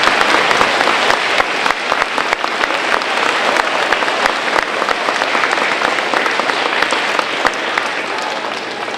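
Audience applauding, many people clapping at once, loudest at the start and easing off a little toward the end.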